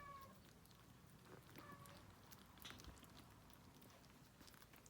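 Near silence, with faint scattered clicks and smacking of kittens chewing soft canned cat food.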